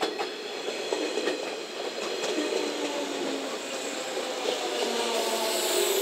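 A three-car JNR 115 series electric train moving along the platform, its wheels clicking over the rail joints, with short squealing tones coming and going over a steady running rumble.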